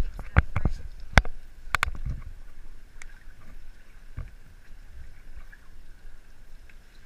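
A few sharp knocks and clatters in the first two seconds, then a quieter steady rush of river water.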